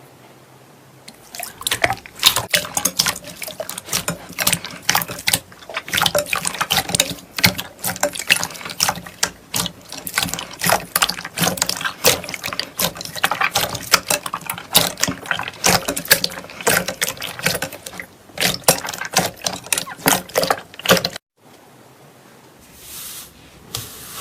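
Slime being squished and worked by hand: a dense run of wet clicks and pops, starting about a second in and cutting off suddenly near the end.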